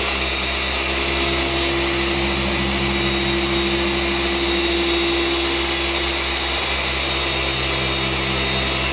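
Electric car polisher with an orange foam pad running at a steady speed, buffing polish into a vinyl wrap on a car hood. It makes a constant whine over a low hum.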